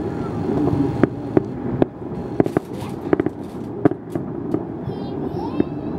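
Festive fireworks salute: a string of irregular bangs and pops of bursting shells, some sharper than others, over a steady background of city noise.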